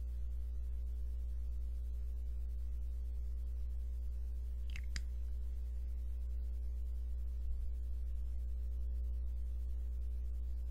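Steady low hum with one brief click about five seconds in.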